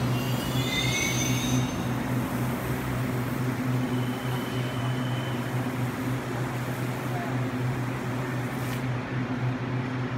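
Taiwan Railways EMU800 electric multiple unit at the platform, its onboard equipment giving a steady low hum. A short run of high tones steps downward in the first two seconds.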